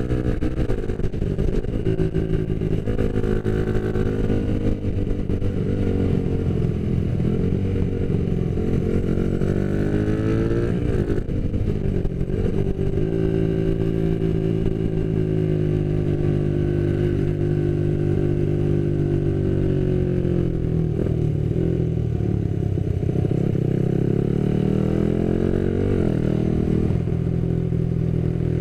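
Motorcycle engine running while riding. Its pitch holds steady for stretches and rises and falls a few times with throttle and gear changes, most clearly around ten seconds in and again near the end.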